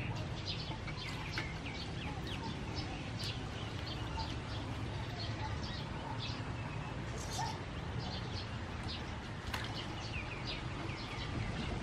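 Hands kneading and rubbing raw octopus in a metal bowl of water to clean it, with wet squelching and splashing. Small birds chirp over and over throughout.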